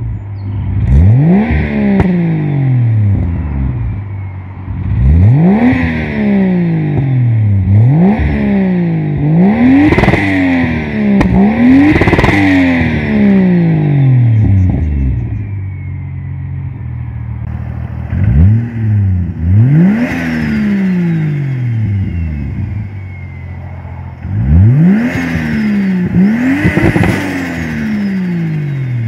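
Turbocharged 2JZ-GE straight-six in a Lexus IS300 (NA-T conversion with a Pulsar GTX3584RS turbo) free-revving while parked. There are about nine quick blips, each shooting up and falling back toward idle, and a thin high whistle falls away slowly after several of them.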